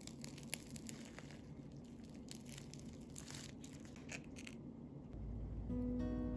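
Flaky croissant crust crackling as it is torn apart by hand: a quick run of fine, crisp crackles. Acoustic guitar music comes in near the end.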